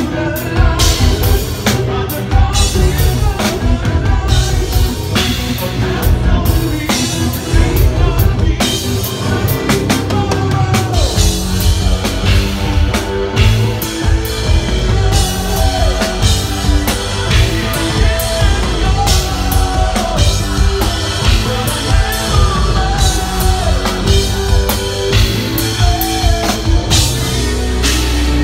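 Progressive metal band playing live and loud: drum kit, bass, electric guitar and keyboards, with a lead singer.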